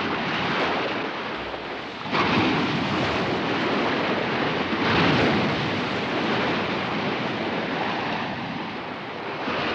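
Anime sound effect of huge wheeled battleships churning through the sea: a dense, steady rush of water and spray, swelling louder about two seconds in and again about five seconds in.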